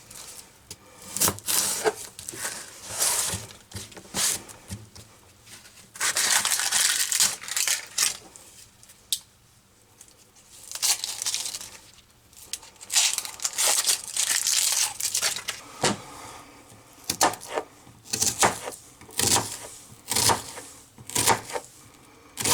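Knife cutting an onion on a cutting board, with its papery skin being peeled off: irregular sharp knocks of the blade on the board, and stretches of crinkly rustling and tearing.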